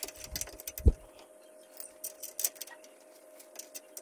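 Small metallic clicks and clinks of a bush, washers and bolt being fitted by hand into a car's front tie member, with a dull thump a little under a second in, over a faint steady hum.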